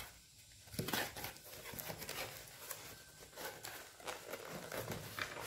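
Cardboard shipping box being opened by hand: flaps pulled apart, with irregular rustling and scraping of the cardboard starting about a second in.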